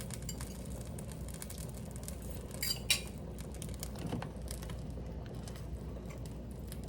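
A few light clinks of a kitchen utensil against dishware, about three strikes in the middle, over a steady low hum.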